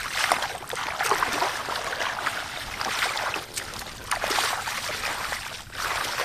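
Shallow muddy water splashing and sloshing in irregular swells as hands grope through it and feet wade.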